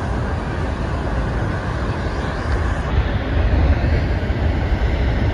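Steady roar of the American Falls at Niagara: a heavy mass of water pouring over the brink and crashing into the gorge, a continuous deep rushing noise that grows a little louder about three seconds in.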